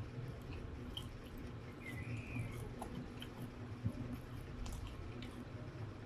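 Close-miked chewing and wet mouth sounds of someone eating fried instant noodles and Spam, with small lip smacks and clicks over a low steady hum.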